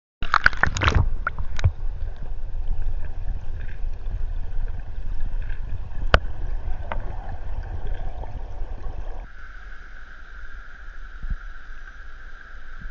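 Muffled rushing and sloshing of river water around a submerged camera, with several sharp knocks and clicks. About nine seconds in it changes to the quieter, steadier rush of river rapids.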